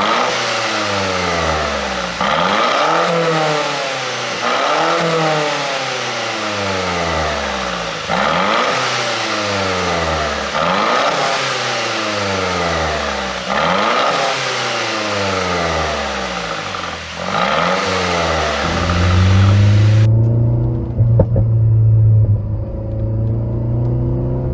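Exhaust of a 2013 Mercedes-Benz SLK 200 (R172) with a pop-and-crackle ECU tune, revved in repeated throttle blips about every two to three seconds, the pitch climbing and falling each time. About three-quarters of the way through it settles to a steady idle, with a few sharp pops near the end.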